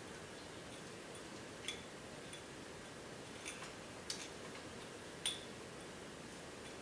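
Scissors snipping synthetic fly-tying fibers to trim a fly: four short, crisp snips at uneven intervals.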